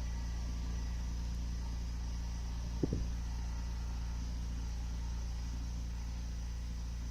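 Steady low mechanical hum, with one short knock about three seconds in.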